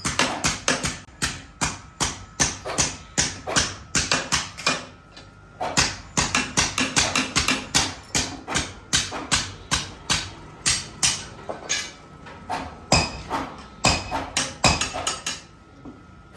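Hammer blows on steel at an anvil while forging a katana blade: rapid repeated strikes, several a second, broken by short pauses, with a faint steady ring beneath.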